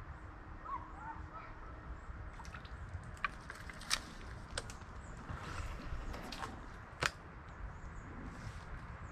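Quiet riverbank ambience: a low rumble throughout, a few faint bird chirps in the first second or so, and several sharp clicks between about three and seven seconds in, the loudest near seven seconds.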